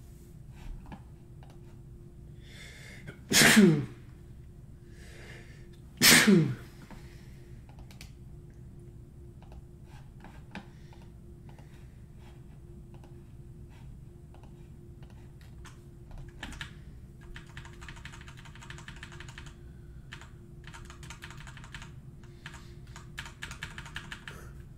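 A man sneezing twice, about two and a half seconds apart, each sneeze led by a quick intake of breath. From the middle on, short runs of computer keyboard typing.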